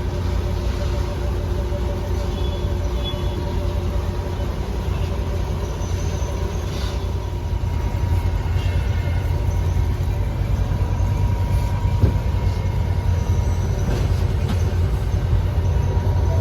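A commercial heat pump's indoor air handler running: a steady low hum with a few faint steady tones above it.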